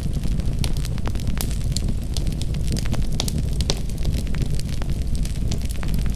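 Wood fire in a fireplace crackling, with many sharp irregular pops and snaps over a steady low rumble of the flames.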